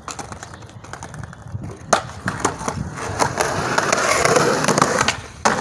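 Skateboard wheels rolling on a concrete sidewalk, with sharp clicks. The rolling grows louder from about halfway, then drops out briefly near the end.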